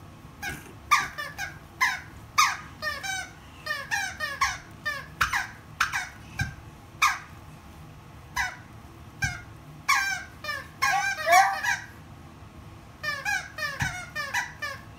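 Squeaker inside a plush dog toy squeaking over and over as a toddler presses it under his foot: many short squeaks, often falling in pitch, some in quick wavering runs, with two pauses of about a second.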